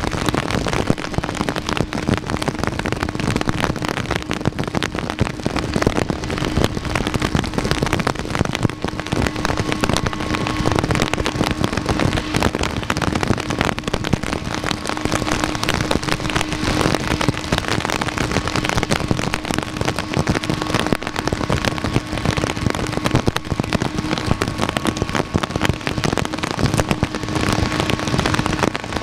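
Heavy rain: a dense, even crackle of drops hitting a surface, with a steady low hum underneath.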